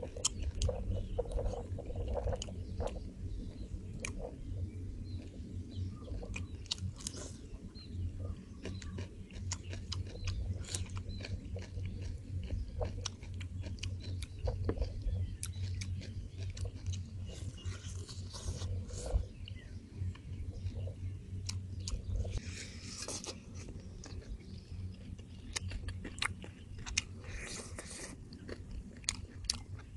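A person chewing and biting into deep-fried chicken drumsticks: many short wet clicks and smacks of close-up eating over a steady low hum.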